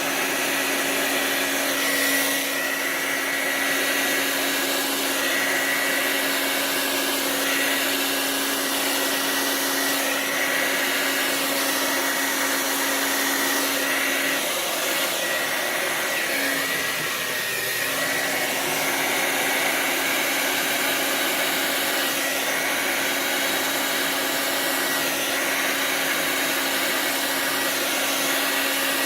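Hair dryer running steadily on high with the cool-shot button held in, a continuous rush of air over a motor hum. The hum wavers briefly about halfway through.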